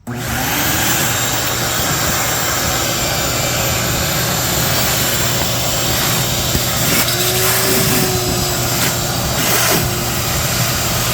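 Wet/dry shop vacuum switching on suddenly and running steadily at full power, sucking standing floodwater off a garage floor.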